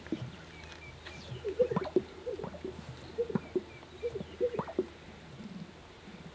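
Greater sage-grouse males strutting on a lek: low coos and sharp pops from their inflated air sacs, repeating in overlapping bouts. The loudest pops come about two seconds in and again near five seconds.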